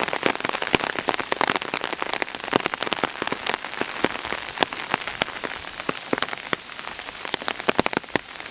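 Steady rain falling, with many sharp, irregular drops hitting close by over a continuous hiss.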